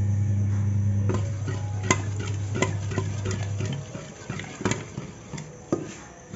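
A ladle stirring thick saag in a metal pot, knocking and scraping against the pot's sides with several sharp clacks, as maize-flour paste is worked in to thicken the greens. A steady low hum runs underneath and stops a little past halfway.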